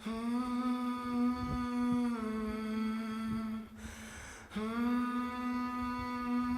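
A single voice humming long, held notes, with a short break about four seconds in before it picks up again on a rising note.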